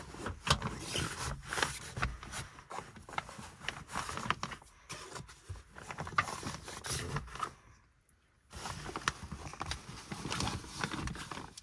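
Rustling and irregular clicks of a quilted insulated van window cover being handled and taken down, with a short quiet break about eight seconds in.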